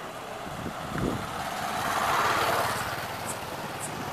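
Motorcycle passing close by: its engine and tyre noise swell to a peak about two seconds in and fade away, over steady road traffic noise.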